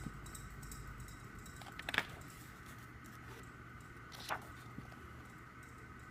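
Album packaging and photo cards being handled: a few brief crinkles and taps, the sharpest about two seconds in and another a little after four seconds, over a faint steady hum.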